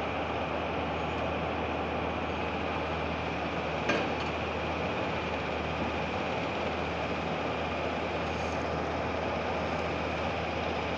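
Steady noise of industrial plant machinery running, with a low hum under it and a faint high whine. A single sharp metallic clink about four seconds in.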